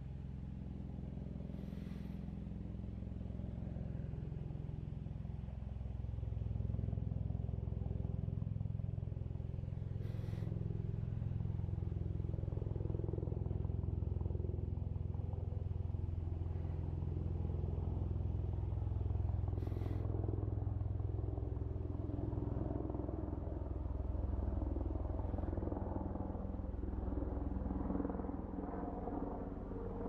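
A low, steady mechanical rumble with a hum, a little louder from about six seconds in. Three brief sharp clicks come about eight to ten seconds apart.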